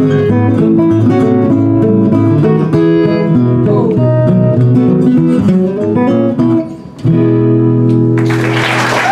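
Steel-string acoustic guitar and metal-bodied resonator guitar playing a fingerpicked duet, breaking off about six and a half seconds in and landing on a final held chord. Audience applause starts near the end.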